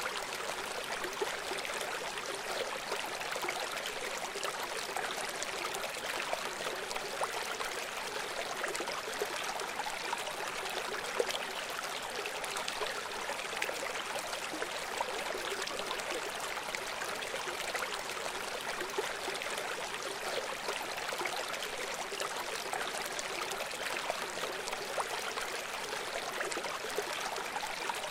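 River water flowing, a steady rushing with many small splashes and trickles running through it and little deep rumble.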